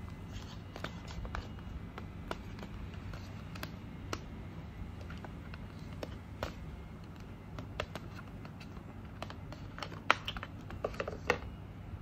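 Scattered small clicks and scratches of hands working a neckband Bluetooth headphone and its earbud cables out of a moulded cardboard packaging tray, with a quick run of clicks near the end. A low steady hum runs underneath.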